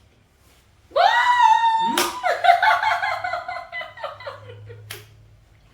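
A woman's long, high-pitched squeal of triumph at winning, breaking into laughter, with a sharp smack about a second after it starts and another near the end.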